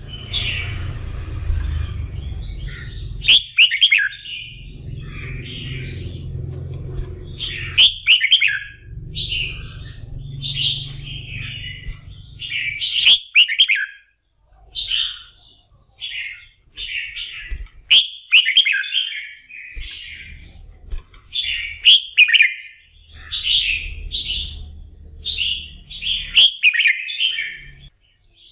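Red-whiskered bulbul singing: short, rapid warbled phrases repeated every second or two, some with sharp clicky notes. A low background rumble comes and goes under the song.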